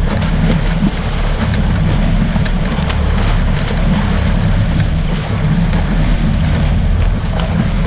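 Sportfishing boat's engines running with a steady low rumble, mixed with wind buffeting the microphone and water churning and splashing at the stern where a hooked blue marlin is thrashing at the surface.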